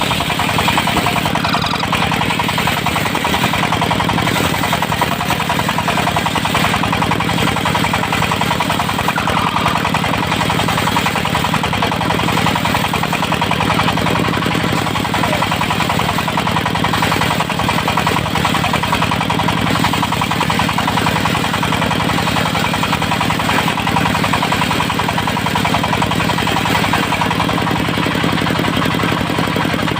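Diesel engine of a mobile circular-saw sawmill running steadily and loudly, driving the saw blade while teak is squared into beams.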